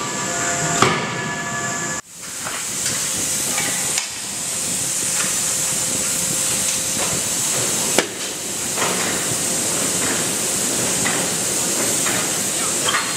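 Forge shop noise: a steady hiss with a few sharp metallic knocks, one about a second in and another about eight seconds in. The sound drops out briefly about two seconds in.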